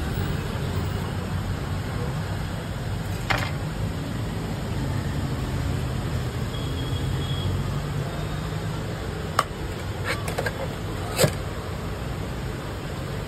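Steady low rumble of street traffic, with a few short sharp clicks of a knife and steel utensils, once about three seconds in and a cluster near the end.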